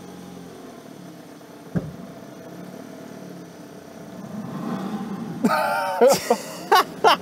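An old Mercedes's engine running steadily at low revs as the car creeps forward on a 3D-printed ABS rim, with a single knock a couple of seconds in. Near the end come several loud, sharp squeaks, one after another.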